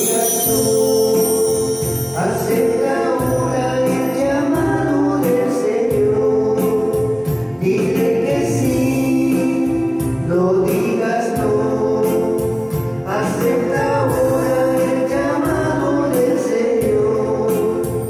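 Choir singing a Christian hymn with musical accompaniment, in sung phrases over steady low notes.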